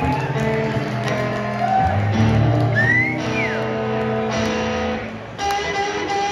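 Solo blues guitar played live on a sunburst archtop, a passage of sustained single notes and chords. About three seconds in, a note slides up and back down.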